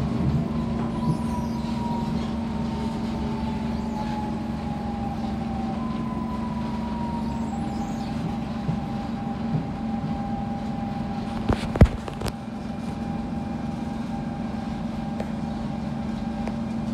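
Siemens C651 metro train running, heard from inside the car: a steady low rumble with a traction-motor whine that slowly falls in pitch as the train slows. A sharp clunk sounds about twelve seconds in.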